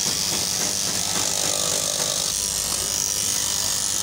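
Electric straight-knife cloth cutting machine running steadily, its reciprocating blade cutting through a thick stack of fabric layers under a paper marker.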